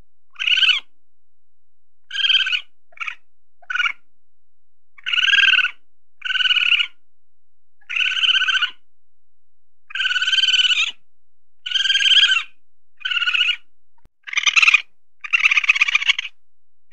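A weasel calling: about a dozen short, high squealing calls, each less than a second long, with pauses between them; near the end the calls come longer and closer together.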